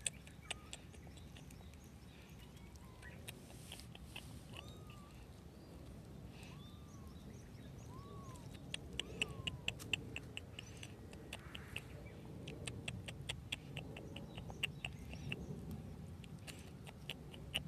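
Small stray kittens chewing and biting with their new teeth: runs of small sharp clicks that come faster and thicker in the second half. A few faint short rising-and-falling calls sound in the first half.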